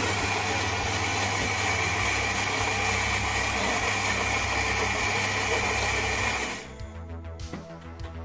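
Philips 2200 LatteGo espresso machine's built-in ceramic burr grinder grinding beans at the start of a latte: a steady whirring grind that stops abruptly about six and a half seconds in.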